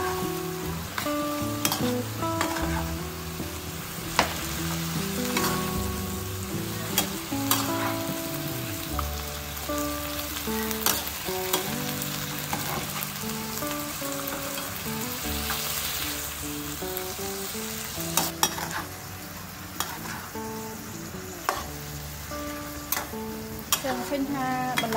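Beef and vegetables sizzling in a hot frying pan as a metal spatula stirs and turns them, with scattered sharp clicks and scrapes of the spatula against the pan.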